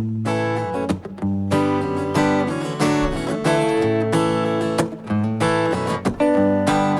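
Live acoustic string band playing an instrumental intro: acoustic guitar strumming chords in a steady rhythm, with other plucked string notes over a low bass line.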